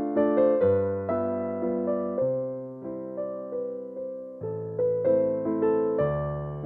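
Background piano music: a gentle melody of struck notes, each fading away after it is played.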